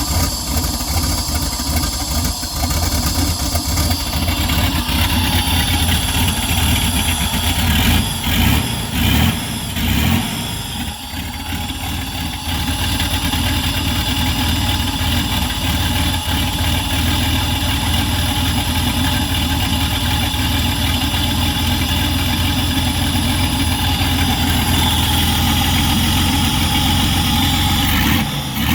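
A 1992 GMC Typhoon's rebuilt turbocharged 4.3 L V6, with a Comp cam and ported Vortec heads, running on one of its first starts, its ignition timing not yet set. It runs steadily, with a few brief surges and dips about eight to eleven seconds in.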